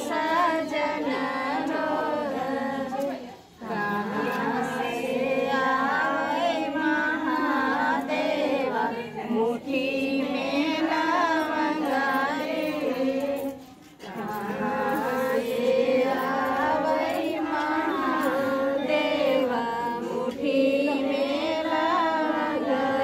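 A group of women's voices singing together in chorus. The singing breaks off briefly twice, about three and a half and fourteen seconds in.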